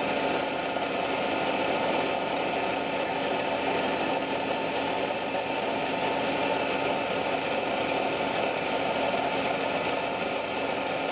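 Drill press running steadily while a small bit bores spoke holes into a wooden wheel rim.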